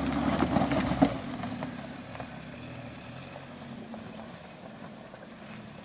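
Suzuki SX4 engine running as the car climbs a dirt slope, louder for the first second or two, then dropping away to a low, steady hum, with a knock about a second in.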